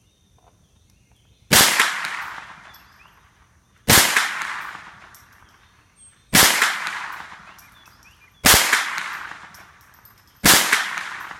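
Tippmann AR-22LR .22 LR rifle firing five single shots of Blazer ammunition, about two seconds apart, each shot's report echoing away before the next.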